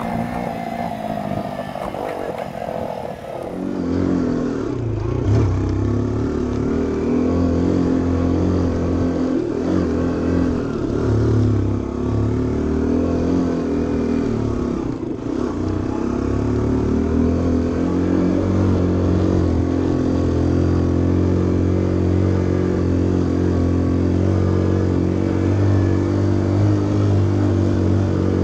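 Small motor scooter's engine running under the rider while riding a rough mountain track, its pitch rising and falling with the throttle. About four seconds in the sound jumps louder and deeper, then settles into a steadier running note.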